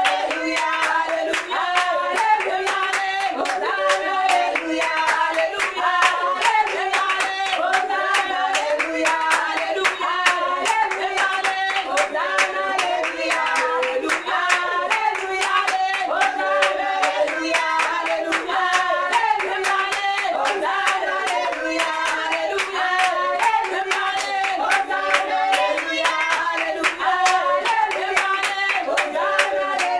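Congregation singing a worship song to steady, rhythmic hand clapping.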